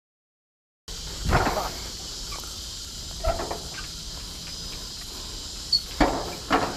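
After about a second of silence, a steady high insect chorus of crickets, with a few dull knocks from bare feet stepping down the rungs of an iron ladder.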